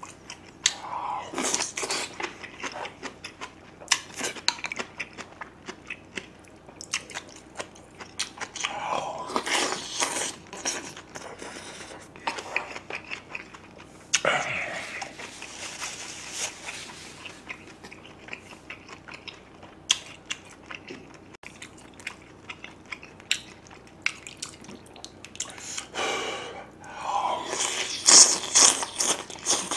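Close-up eating sounds: crunchy kimchi being chewed with many small wet clicks, broken by several longer slurps. The longest and loudest slurp, of thin noodles and soup broth, comes near the end.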